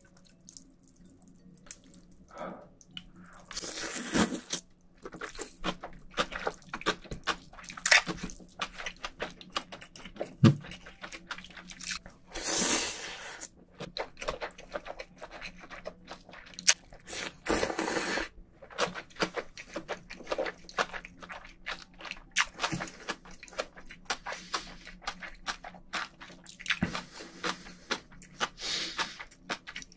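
A man eating naengmyeon noodles close to a microphone: wet chewing and lip smacks throughout, with a few longer slurps about 4, 12, 18 and 29 seconds in.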